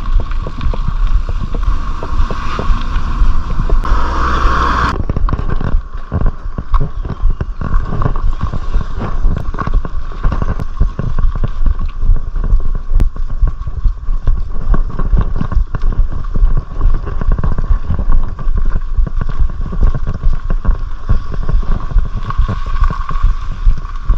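Mountain bike ridden over rough off-road trail: the bike rattles and knocks continuously over bumps and roots, with wind buffeting the microphone.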